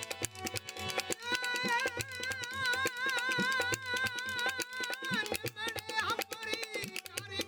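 Live Rajasthani Manganiyar folk music: fast hand-drum and clapper percussion, with a long held note wavering in wide vibrato for about four seconds, then shorter sliding melodic phrases.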